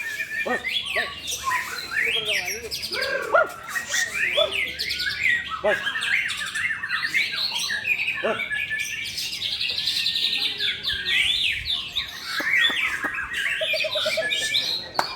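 Murai songbirds singing against each other: a continuous stream of fast, varied whistled phrases and chirps.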